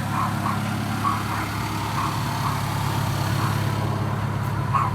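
Car engine running with a steady low drone, with faint short ticks recurring in pairs about once a second.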